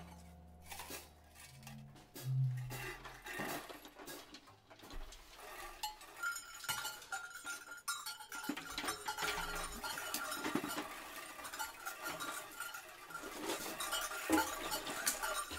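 Sparse free-improvised music: scattered metallic clinks, taps and small scrapes, joined about six seconds in by a thin, steady high tone that holds almost to the end.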